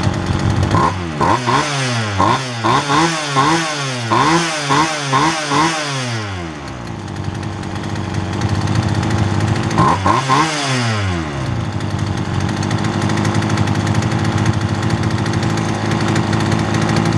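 Poulan two-stroke chainsaw engine running with no bar or chain fitted, blipped repeatedly through quick rise-and-fall revs for the first six seconds or so, then settling to a steady idle. There is one more short pair of revs about ten seconds in. The saw holds its idle with its carburetor freshly tuned.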